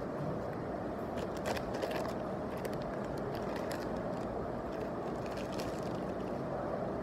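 Steady vehicle running noise, with faint scattered clicks and ticks throughout.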